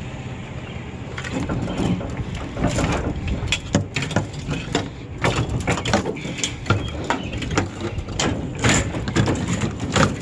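Repeated knocks and clatter of items being handled and shifted, over a low steady rumble.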